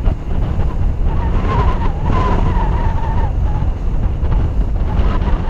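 Wind rumbling on the microphone of a moving car, mixed with tyre and road noise. A faint wavering whine rises over it for a couple of seconds in the middle.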